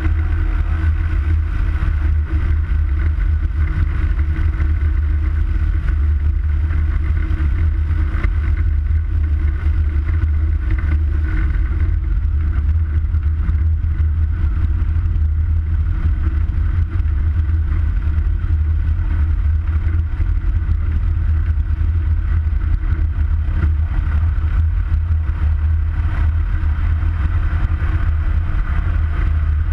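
Piston engine and propeller of a high-wing Cessna single-engine plane running steadily at low power while taxiing, heard from outside the cabin under the wing.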